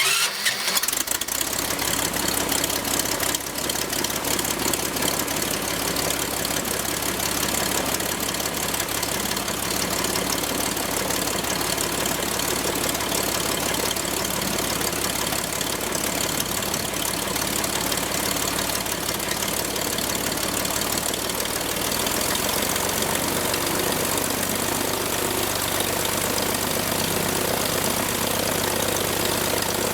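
Franklin 165 six-cylinder air-cooled aircraft engine running steadily on a test run after repair of a blown cylinder. It sounds much better. Its low note strengthens and evens out about two-thirds of the way through.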